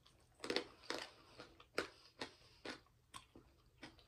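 A person chewing food close to the microphone: a string of short, irregular mouth smacks and clicks.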